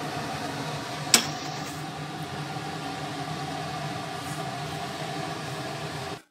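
A steady mechanical hum, with one sharp metallic clink about a second in as chicken is laid into the steel pot; the sound cuts off suddenly just before the end.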